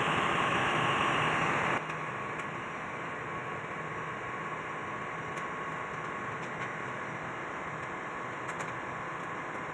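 Steady mechanical drone of running machinery with a low hum. A louder, hissier layer cuts off abruptly about two seconds in, leaving the lower drone with a few faint clicks.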